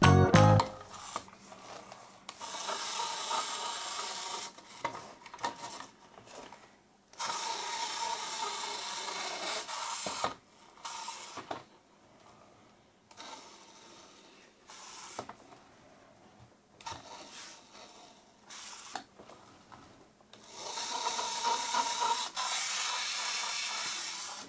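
Small plastic wheels of a toy bus rolling across a surface as it is pushed by hand, a rasping, rubbing run that comes in stretches of a few seconds with quiet pauses between.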